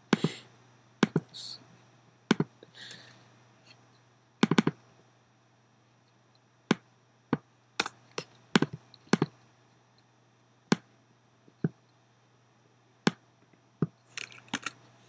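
Irregular single clicks of a computer mouse and keyboard, spaced a second or more apart and bunching into quicker runs in the middle and near the end, over a faint steady low hum.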